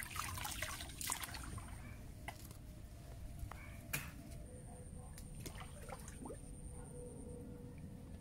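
Small splashes and drips of river water around a wader's hands and body, busier in the first couple of seconds, then scattered drips with one sharper drip or tap about four seconds in.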